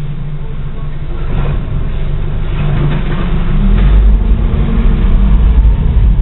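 Low diesel engine rumble and road noise from an automated side-loader garbage truck driving ahead, heard through the windshield of a following car. The rumble gets louder about four seconds in.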